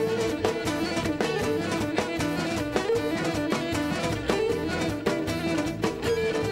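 Cretan folk dance music: a bowed string melody over strummed plucked-string accompaniment with a steady quick beat.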